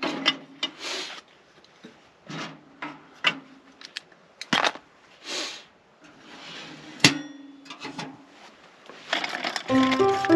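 Scattered knocks, clicks and short rustles of objects being handled at close range, irregular rather than rhythmic. Music comes in near the end.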